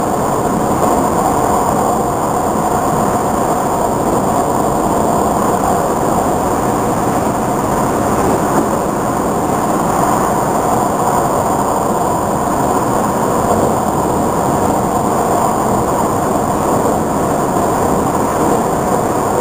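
Nanjing Metro airport express train running at speed on an elevated track, heard from inside the car: a steady, even running noise of wheels on rail.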